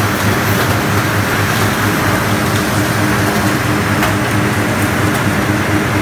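HDPE film hot-washing recycling line running: electric motors, gearboxes and a screw conveyor giving a steady, loud hum over a broad mechanical rush, with a few faint ticks.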